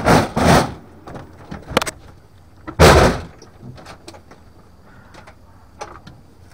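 A house door being opened and swung shut, with the loudest thud about three seconds in and a few light clicks after it.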